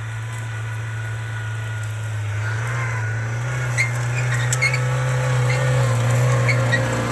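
An off-road vehicle's engine running under load, getting louder and rising slightly in pitch from about two and a half seconds in, with several short high squeaks over it.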